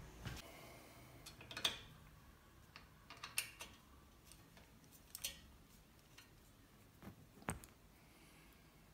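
Faint, scattered light clicks and metallic ticks, about four sharper ones a couple of seconds apart, as a bicycle V-brake's cable and metal noodle are handled and the cable is pulled through the brake arm to tighten it.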